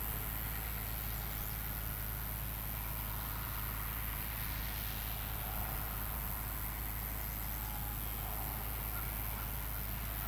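International Harvester 1066 tractor's diesel engine running steadily under load, with a constant low hum and a steady hiss.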